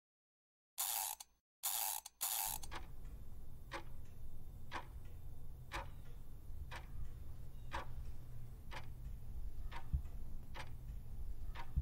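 Countdown clock sound effect: a sharp tick about once a second over a low steady rumble. It starts after three short bursts of noise about a second in.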